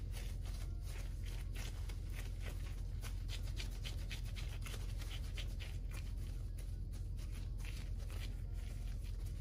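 Hands in black disposable gloves pressing and shaping a soft potato-and-chicken mash around a drumstick bone: soft, irregular rustling and crackling of the gloves with squishing of the mash, over a steady low hum.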